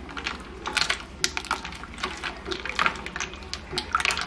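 Ice cubes clinking and knocking against a bowl and a spoon as a milky drink full of ice and watermelon cubes is stirred, with liquid swishing. The clicks come irregularly, several a second.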